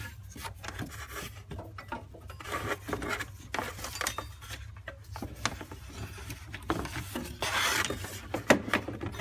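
Old rubber serpentine belt being pulled out past the engine pulleys by hand, rubbing and scraping with scattered clicks and knocks. A longer scraping rub comes about four-fifths of the way through, over a steady low hum.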